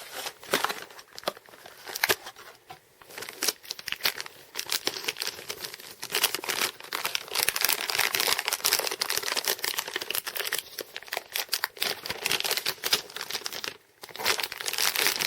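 Plastic hard-drive packaging crinkling and crackling as it is pulled open and handled, with many quick crackles that grow dense and continuous through the middle and stop briefly near the end.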